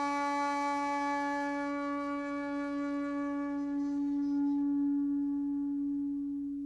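Music: one long held note with a stack of overtones, the brighter upper overtones dying away about four seconds in while the low note carries on steadily.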